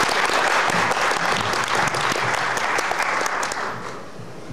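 Audience applauding, the applause thinning to scattered claps and dying away near the end.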